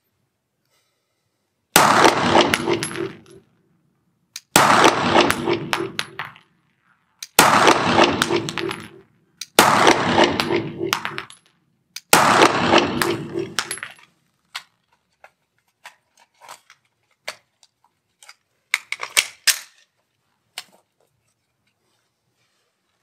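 Five single pistol shots, about two and a half seconds apart, each ringing on in a long echo off the walls of an indoor range. After them come several light clicks and clacks as the pistol is handled.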